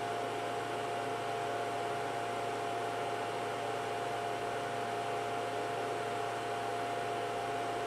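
Cooling fans of a ToolkitRC M8D charger and an EFuel 1200 W power supply running steadily under a charging load of about 1000 W: a steady whirring hiss with a constant mid-pitched tone and a low hum beneath it.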